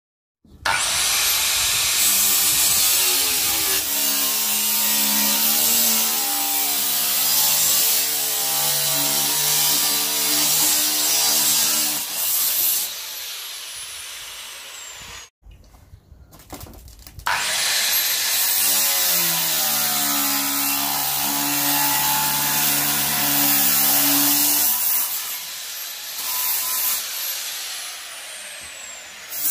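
Large Makita angle grinder cutting thin steel sheet in two long passes. Each time the disc spins up with a rising whine, grinds loudly for about ten seconds, then winds down with a falling whine.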